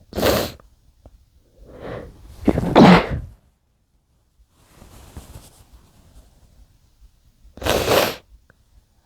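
Muffled human sneezes, three in all. One comes right at the start, the loudest about three seconds in follows a short build-up, and the third comes near the end. Between them is a faint breathy sound.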